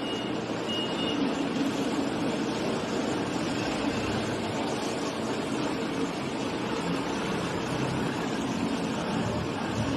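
Steady rushing noise of water being sprayed onto an outdoor LCD digital signage cabinet in a waterproof test.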